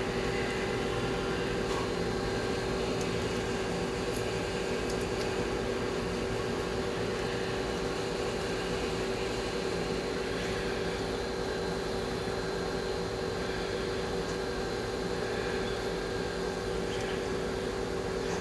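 Steady hum of a running motor holding one constant pitch, with a few faint light clicks.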